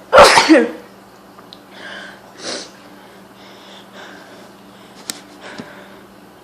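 A woman's single loud, explosive sneeze just after the start, caused by hay fever, followed by a couple of much quieter breaths.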